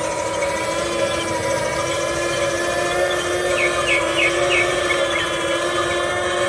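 Small electric gear motors of a Huina RC excavator running with a steady whine. A few short high chirps come in about halfway through.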